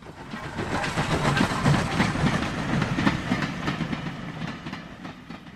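Steam train running on rails, with a fast, uneven beat of chuffs and clatter. It fades in over the first second and eases off slightly toward the end.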